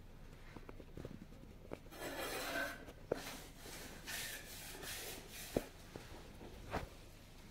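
Denim fabric rubbing and rustling under the fingers as a needle is worked through it during hand embroidery, in two soft stretches, with three sharp little clicks about three, five and a half and seven seconds in.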